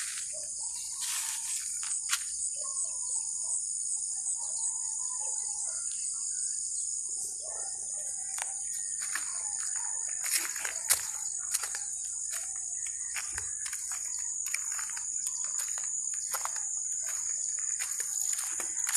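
Steady high-pitched chorus of insects, with birds chirping in the first half and many short crunching clicks, likely footsteps on a gravel path, through the second half.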